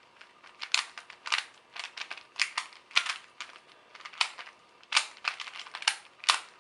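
A Rubik's Cube being scrambled by hand: irregular sharp clicks of its plastic layers snapping round as it is twisted, roughly two a second.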